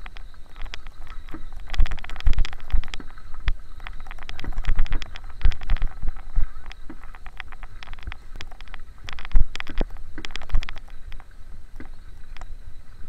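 Crunching footsteps of a group walking on a gravel road, with irregular clicks and knocks coming in clusters.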